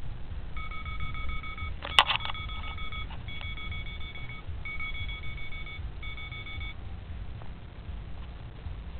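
A series of electronic beeps, each about a second long with short gaps, with a sharp click about two seconds in, over a steady low rumble.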